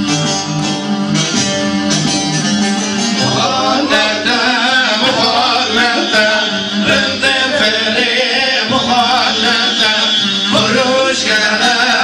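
Men singing a folk song into microphones over plucked string accompaniment, the voices wavering in ornamented runs.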